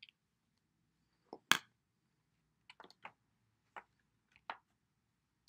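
Scattered light clicks and knocks from dry-erase markers and their caps being handled, with one sharper, louder knock about a second and a half in.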